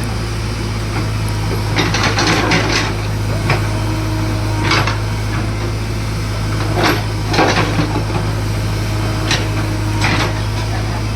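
A JCB excavator working, its diesel engine running as a steady low hum under irregular knocks and clanks from the digging. There are about eight of them, with a cluster about two seconds in.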